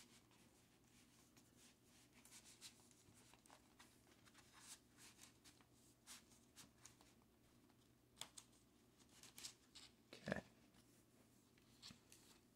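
Faint rustling and sliding of a cardboard triple-gatefold record jacket being unfolded and handled, with scattered light clicks of the card and a soft thump about ten seconds in.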